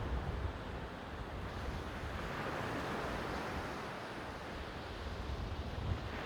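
Sea waves washing on the shore, a steady rushing that swells about halfway through, with wind rumbling on the microphone.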